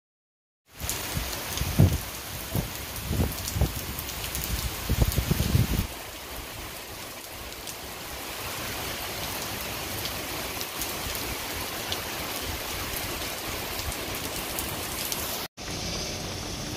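Heavy rain pouring down, a dense steady hiss. In the first few seconds, irregular loud low thumps sound under the rain.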